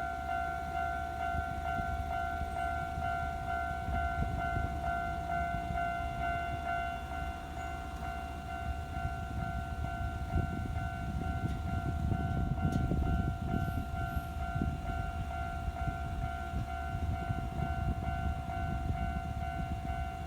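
Japanese railway level-crossing alarm ringing steadily with its evenly repeated electronic ding, while a Nankai Kōya Line train rumbles across the crossing, loudest in the middle.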